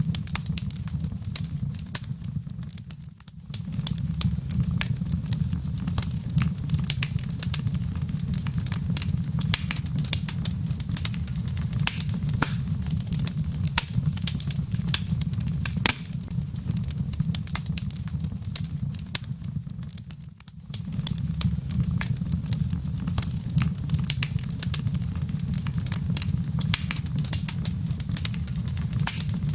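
Wood fire crackling with dense sharp pops over a steady low rumble. The sound dips briefly twice, about three seconds in and again near twenty seconds.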